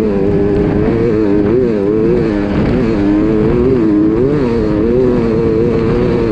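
Sherco enduro dirt bike engine running hard under the rider, heard on board. Its pitch dips and climbs again a few times as the throttle is rolled off and back on, over a rough low rumble.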